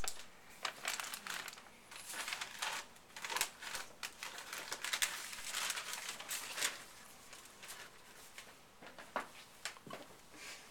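Irregular crinkling and rustling, as a Christmas gift and its wrapping are handled and unwrapped.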